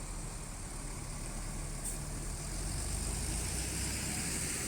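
Tour bus diesel engine running with a steady low rumble, a little louder from about two seconds in.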